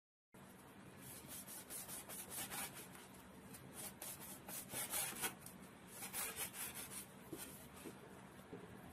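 Large kitchen knife slicing through tightly rolled lavash flatbread on a wooden cutting board: a quick run of soft, papery cuts, one after another, loudest around the middle.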